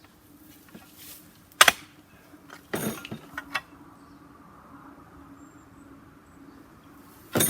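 Sharp knocks and clanks from hand work around a derailed excavator track: one loud knock about a second and a half in, a quick cluster of smaller knocks around three seconds, and another loud one near the end, over a faint steady hum.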